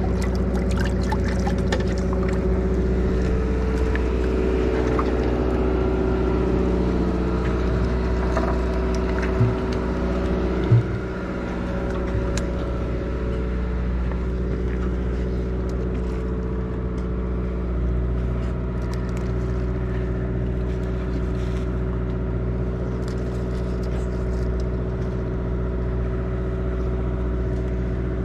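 Sportfishing boat's engine running steadily, a constant low hum, with two short knocks about ten seconds in.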